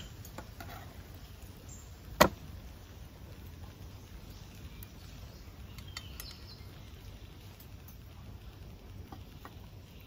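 Quiet forest ambience with a few faint bird chirps, broken by a single sharp knock about two seconds in.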